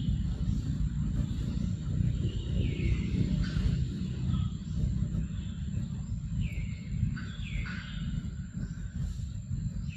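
Forest birds calling with short whistled notes that mostly slide downward, several times, over a low steady rumble and a thin steady high tone.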